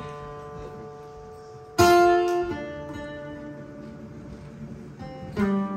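Acoustic guitars opening a song: a chord struck and left ringing, a louder strummed chord about two seconds in, and another strum near the end.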